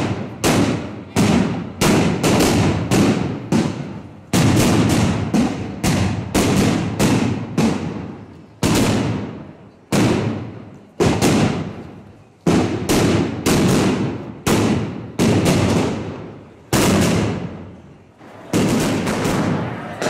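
Firecrackers going off one after another, about one or two sharp bangs a second, each one trailing off in echo.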